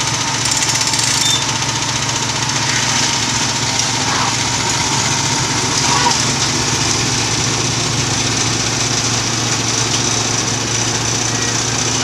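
Small gasoline engine of a Logmaster LM1 portable bandsaw mill running steadily under load as its band blade saws along a pine log.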